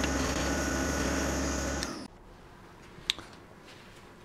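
Wood lathe running with a steady hum while a gouge cuts inside a turned wooden box. The sound cuts off abruptly about two seconds in, leaving low room tone with a single sharp click about a second later.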